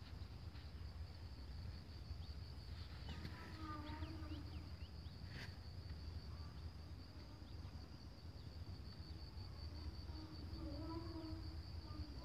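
Insects trilling steadily, a high, rapidly pulsing tone, over a low rumble of wind on the microphone. Faint distant voices are heard about three seconds in and again near the end.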